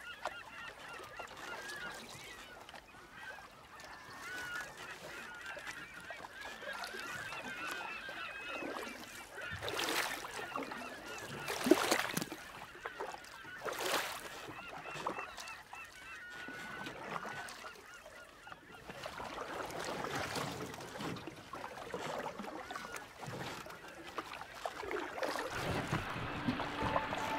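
Birds calling over and over with a honking sound, over water lapping. Between about ten and fourteen seconds in come several sharp splashes, like a hooked fish thrashing at the surface.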